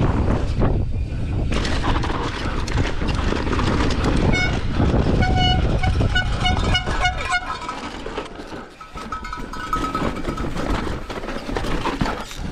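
Mountain bike descending a rough, technical trail at speed: wind rushing over the microphone and the tyres and frame rattling over rock. Partway through comes a string of short repeated horn-like toots, and the rumble eases about two-thirds of the way in.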